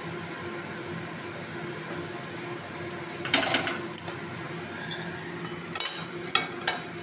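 A metal utensil scraping and clinking against a cooking pan: one scrape a little over three seconds in, then several sharp clinks near the end, over a steady low hum.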